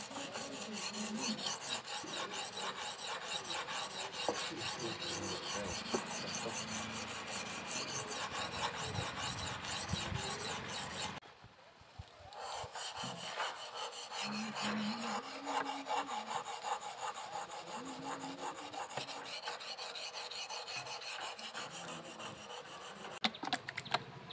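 Steel knife blade, forged from leaf spring, being stroked back and forth across a wet whetstone in a fast, steady run of scraping strokes. The strokes stop for about a second near the middle, then carry on.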